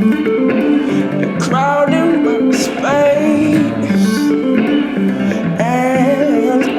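Soulful song: a man singing in a high voice, sliding up into held, wavering notes, over a steady picked guitar pattern.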